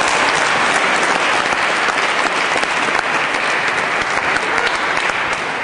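Spectators applauding in a table tennis hall right after a point ends, a dense clapping that eases off slightly toward the end.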